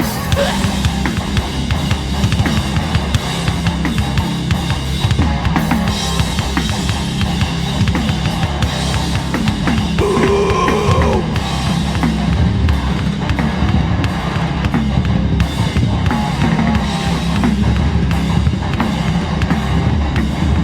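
Hardcore punk band playing live: a loud, fast drum kit pounding over heavy bass and guitar, with no vocals.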